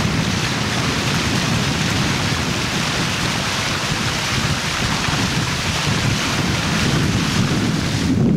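Wind buffeting an outdoor microphone: a loud, steady rushing hiss over a fluttering low rumble. The hiss cuts off abruptly at the end while the low buffeting carries on.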